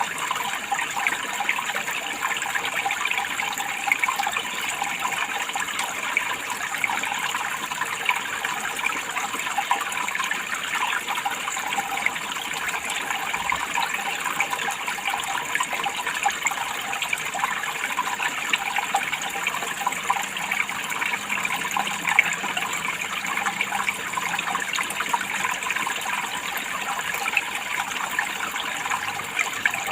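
Water running steadily, an even, unbroken rush of fine splashing that does not change.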